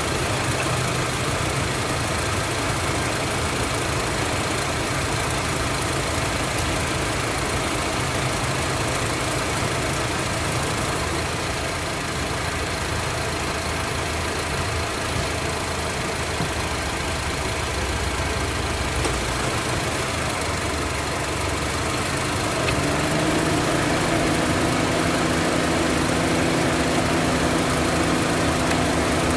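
Honda CR-V four-cylinder engine idling steadily with new spark plugs and ignition coils, its number 2 cylinder misfire cured. About three quarters of the way through, the idle rises slightly and holds at the higher speed.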